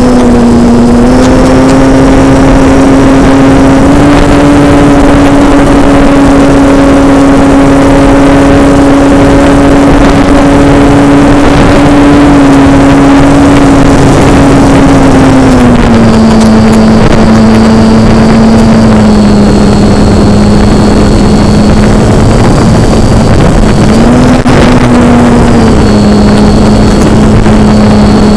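Radio-controlled model airplane's motor and propeller droning in flight, loud and steady, over heavy rushing air. The pitch steps up slightly in the first few seconds, drops lower about halfway through as the throttle comes back, rises briefly near the end and falls again.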